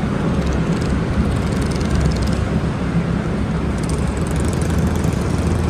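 Steady low rumble of city street traffic.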